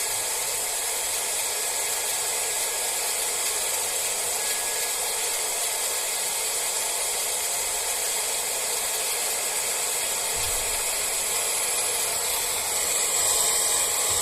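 Panasonic Nanocare Ultimate EH-NC50 hair dryer running: a steady blowing hiss with a faint high whine. It grows a little louder and brighter near the end.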